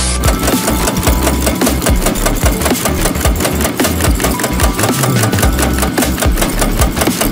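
A machine running with a rapid, even clicking over a low rumble.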